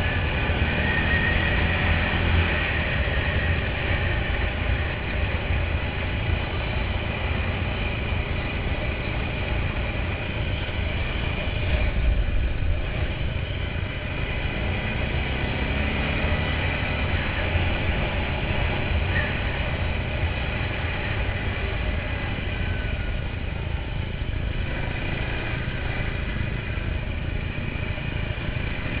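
ATV (quad bike) engine running steadily while riding a rough dirt track, with a constant low rumble. There is a brief louder thump about twelve seconds in, and the engine pitch rises and falls a little shortly after.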